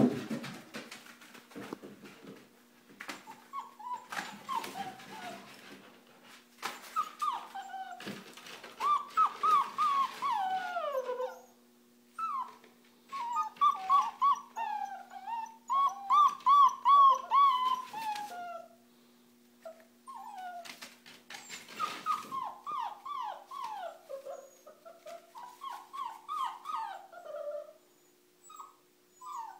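Five-week-old German Shorthaired Pointer puppies whining and yelping in quick runs of high calls that slide down in pitch. The calls are loudest just past the middle. A few knocks and scrapes come between them.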